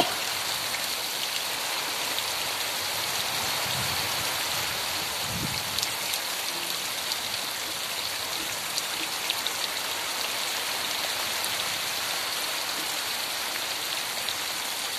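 Heavy rain pouring steadily onto wet bare ground, an even hiss with occasional sharp ticks.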